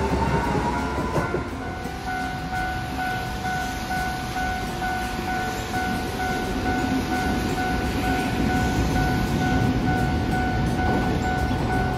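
A departing tram's motor whine rises in pitch and fades out about a second in. Then a Japanese railway level-crossing alarm rings steadily as the gates warn of an approaching tram, over the low rumble of the tramway.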